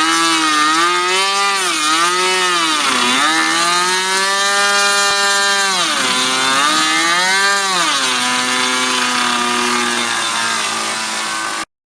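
Small O.S. nitro glow engine of a radio-controlled model plane running at high revs, its pitch dipping and rising several times and settling lower near the end before cutting off suddenly.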